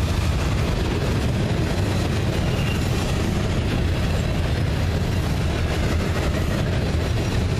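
Freight train's open-top gondola cars rolling past close by: steel wheels on the rails making a steady low rumble and clatter.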